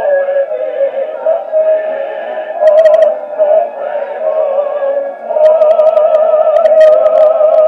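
A soprano and a baritone singing a duet in operatic style, holding long notes with vibrato. The voices swell louder on a held note about five and a half seconds in.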